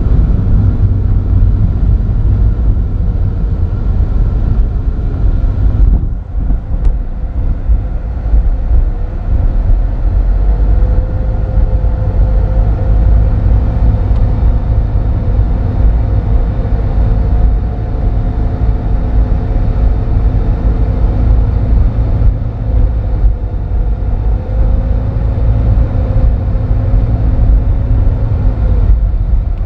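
Car driving slowly, heard from inside the cabin: a loud, uneven low rumble of wind and road noise, with a faint steady hum underneath.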